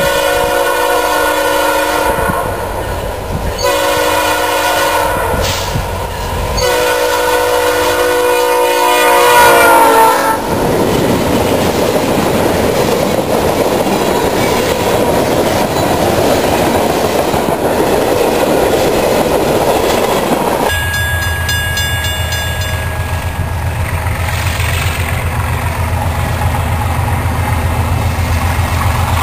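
Locomotive air horn sounding three long blasts, the last one dropping in pitch as the engine goes by, then a train of tank cars rolling past with a steady rumble of wheels on rail. About two-thirds of the way through, this gives way to the low steady drone of a second locomotive approaching in the distance.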